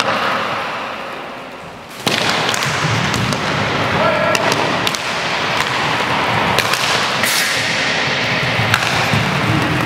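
Inline hockey play in an echoing sports hall: sharp clacks of sticks and ball on the wooden floor over a steady din of skating, with brief shouts from players. The noise starts abruptly about two seconds in, after a fading echo.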